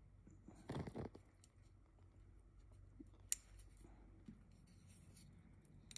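Near silence with faint handling sounds from fingers working the horsehair of a violin bow at the frog: a brief rustle about a second in and a single sharp click near the middle.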